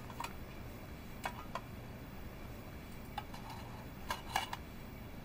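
Quiet room tone with a low steady hum and a handful of faint, irregularly spaced clicks and small handling taps.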